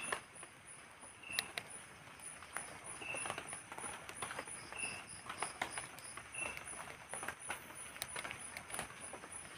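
Light drizzle dripping onto tarpaulin and leaves, heard as scattered sharp taps over a steady chorus of night insects. One insect call is a high-pitched pulse about three times a second, and another is a lower chirp every second or two.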